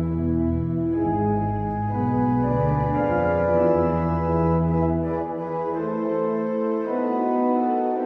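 Organ playing slow held chords, with deep bass notes under them that drop out about five seconds in, leaving the higher chords sounding on their own.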